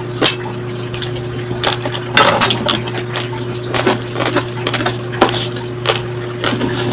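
Uncooked white rice grains crunching between the teeth in close-up chewing: a run of sharp, irregular crackles over a steady low hum. Around four seconds in, a metal spoon scoops rice from a wooden plate.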